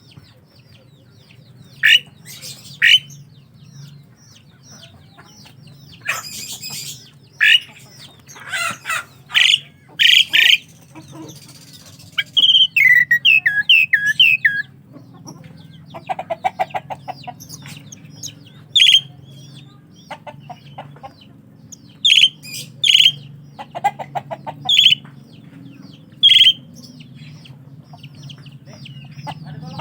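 Asian pied starling (jalak suren) calling and singing: a loose series of sharp whistles and harsh notes, with short rapid rattling chatters, over a steady low hum.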